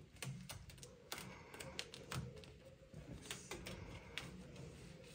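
Foil duct tape crinkling and being pressed and smoothed by hand onto the sheet-metal plenum of a furnace: faint, irregular light clicks and crackles.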